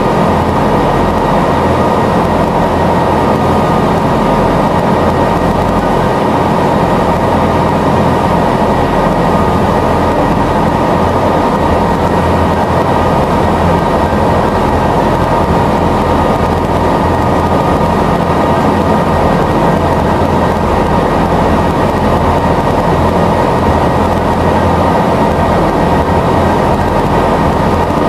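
Passenger ferry's engine running steadily while under way: a loud constant drone with a low rumble and a steady high hum over it.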